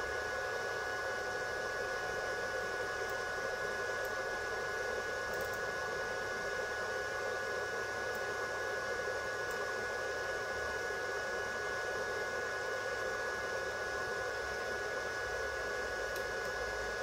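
Steady whirring hiss of a running cooling fan, with a constant high whine over it and no change in speed.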